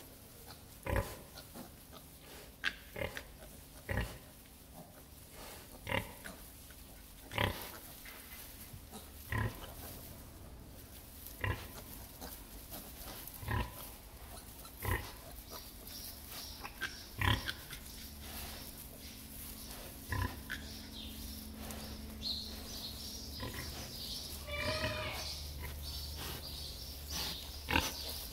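Sow grunting in short, evenly spaced grunts, about one every one to two seconds, while her newborn piglets nurse and nose around her. Near the end a piglet squeals and squeaks.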